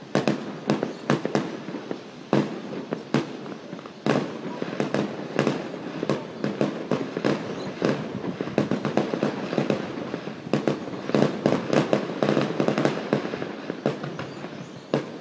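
Fireworks display going off: a rapid string of bangs and pops with crackling between them, growing denser and louder about two-thirds of the way through.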